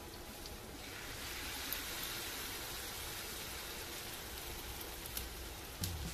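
Hot oil sizzling steadily around corn-and-vegetable fritters frying in a nonstick pan, the hiss swelling about a second in as another spoonful of batter goes into the oil.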